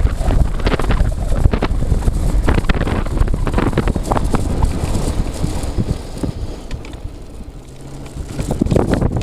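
Wind buffeting the microphone while riding an electric scooter, a heavy low rumble that eases off about six seconds in.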